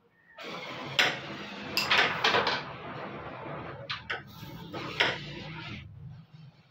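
Carrom striker and coins clacking on a wooden carrom board: sharp clicks as the striker hits the coins and the board's wooden frame, one about a second in, a quick cluster around two seconds, and a few more near four and five seconds, over a steady low hiss.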